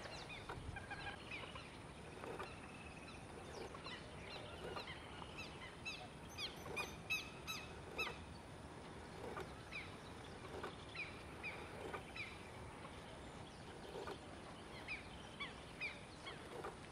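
A group of waterbirds calling: many short calls from several birds, scattered throughout, coming thickest a little after the middle and again near the end.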